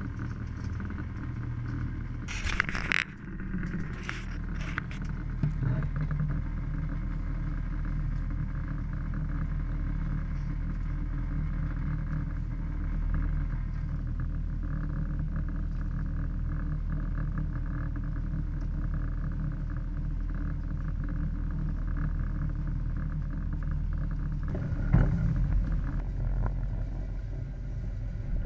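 Boat engine running steadily, with a few sharp knocks about two and a half and four seconds in and again near the end.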